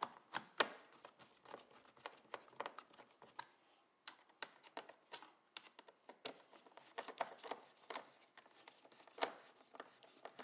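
Screwdriver working the cover screws of a plastic temperature-controller housing as they are tightened: a run of light, irregular clicks and small scrapes.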